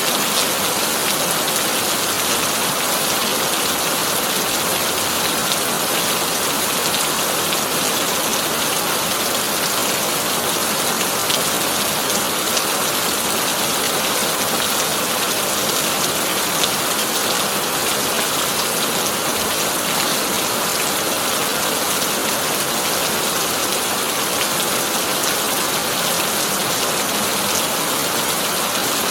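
Heavy rain drumming steadily on a corrugated tin roof: an even, unbroken hiss with scattered sharper drop ticks.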